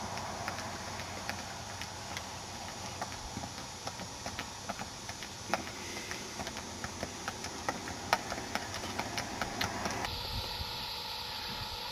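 Horse's hooves clip-clopping over hard ground, irregular knocks several a second, over a steady wind-like hiss.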